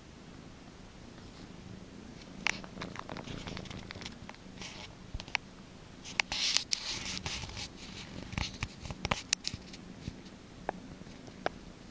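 Domestic cat purring steadily, up close. Scattered clicks and bursts of rustling start about two and a half seconds in and are loudest around the middle.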